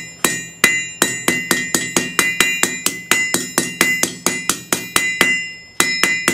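Hand hammer striking a red-hot steel bar on an anvil, rounding the stock for a hot punch: quick, even blows of about four to five a second, each with a bright metallic ring from the anvil, with a short pause about five seconds in.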